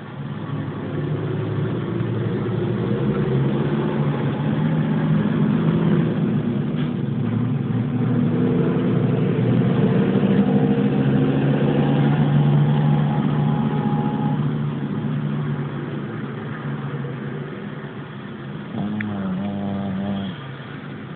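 A pet snoring: a continuous low snore that swells and eases over many seconds, with a brief pitched tone joining near the end.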